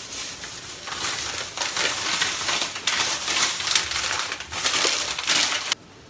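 Thin clear plastic bag and food packaging crinkling and rustling as they are handled, a dense crackle of many small irregular snaps that cuts off suddenly near the end.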